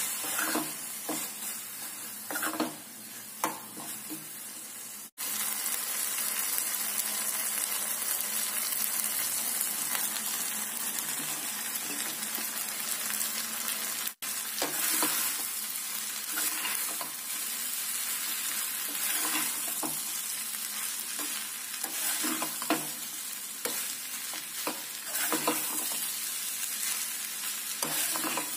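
Hot oil sizzling in a kadai while a spoon stirs vegetable masala and fried idli cubes, scraping and knocking against the pan. The sound cuts out for an instant twice.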